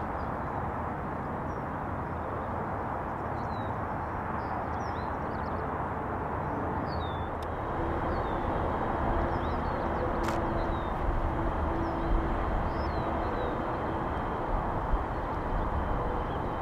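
Steady distant rumble with small birds chirping high above it. The rumble grows louder from about halfway through as a Metrolink commuter train approaches.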